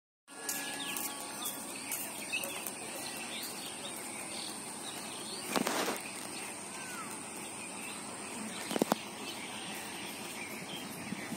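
Rural outdoor background with scattered bird chirps and a steady high-pitched insect hum. A brief louder swell of noise comes about halfway through, and a sharp knock near the nine-second mark.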